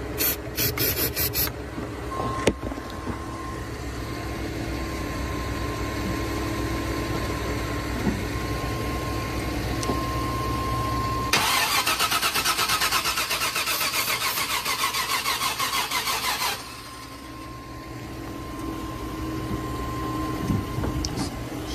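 1998 GMC pickup's engine being cranked on the starter, turning over in short bursts and then in one long crank of about five seconds past the middle, without firing: the engine is getting no spark, which the owner suspects is the distributor cap or the crank sensor.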